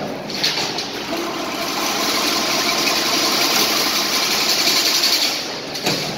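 Automatic chain link fencing machine running, a steady mechanical noise with a sharp click about half a second in and another near the end.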